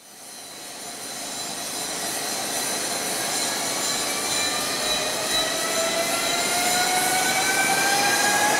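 Newag Impuls 45WE electric multiple unit pulling away and accelerating, its electric drive whine rising steadily in pitch over the rolling noise. It fades in at the start and grows louder as the train approaches.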